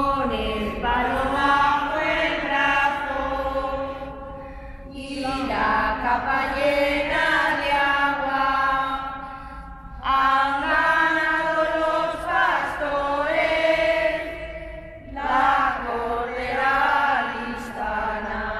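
A group of women singing together, unaccompanied, in long held phrases of about five seconds with short breaks between them.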